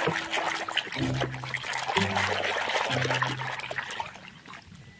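A hand sloshing and rubbing a toy under muddy, soapy water in a plastic basin, with splashing and the crackle of foam bubbles, dying away about four seconds in.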